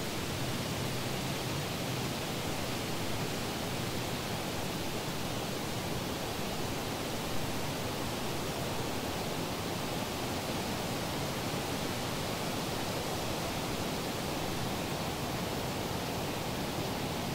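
Steady, unchanging rushing noise, an even hiss spread from deep to high pitches with no tones or rhythm in it.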